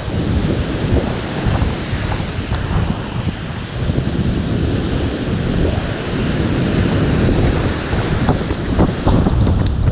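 Strong windstorm gusts blowing hard, buffeting the microphone with heavy low rumbling that swells and eases from gust to gust.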